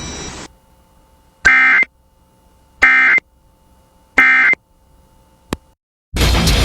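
Three short bursts of Emergency Alert System digital data tones, about 1.4 seconds apart: the end-of-message code that closes an EAS alert. A click follows, then loud heavy-metal music starts near the end.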